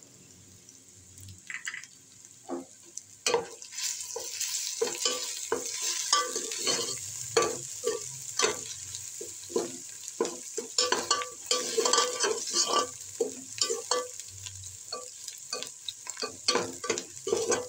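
A metal spatula stirring and scraping chopped onions and whole spices frying in ghee in a metal pot, over a steady sizzle. The scrapes are faint at first and come thick and fast from about three seconds in.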